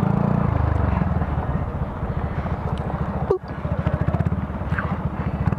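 Honda Grom minibike's small single-cylinder engine running at low speed with a fast, even putter as it rolls across rough ground, with a brief knock about three seconds in.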